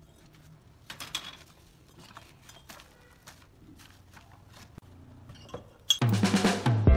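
Hollow clay bricks being set down on steel rebar mesh, with scattered light clinks and knocks. Loud music comes in near the end.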